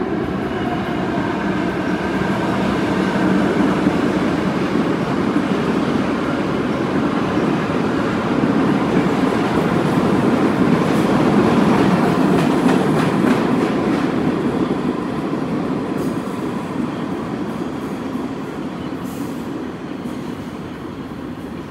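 New York City subway train running through an underground station on the express track without stopping, a continuous rumble of wheels on rails that swells as it passes and then fades as the train heads off into the tunnel.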